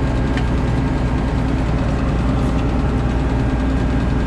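Heavy engine idling steadily, a continuous low rumble.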